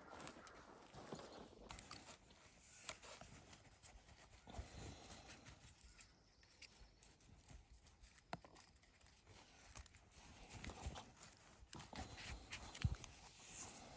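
Faint footsteps crunching and rustling through leaf litter and twigs on a forest floor, uneven steps with a sharper knock near the end.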